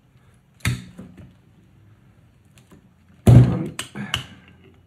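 Metal clanks and knocks of vice grips being turned on a brake caliper piston held under a G-clamp: one knock about half a second in, then a loud thump with a couple of sharp clicks after it about three seconds in.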